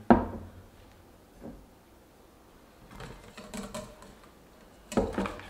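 A glass beer bottle set down on a wooden cutting board with a sharp knock, followed by softer irregular scraping and rattling as batter mix is poured into a stainless steel bowl with a wire whisk in it, and another sharp knock about five seconds in.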